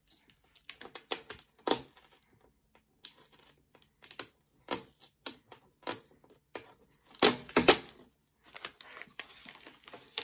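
Protective plastic film and tape being peeled off the plastic bed of a new sewing machine: irregular crackling and tearing, loudest about seven seconds in.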